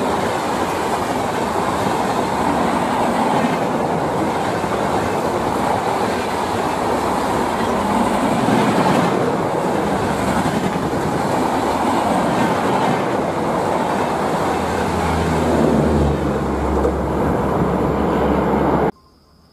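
Express passenger train coaches passing close by at speed: a steady rush of wheels on the rails with some clatter. A deeper rumble builds late on, then the sound cuts off suddenly near the end.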